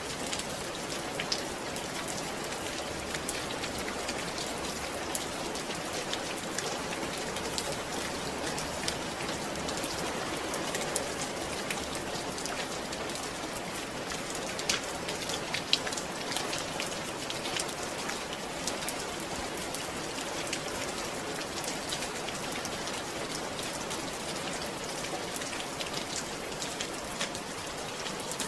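Steady rain falling, with many individual drops ticking sharply on a surface and a few louder drops standing out.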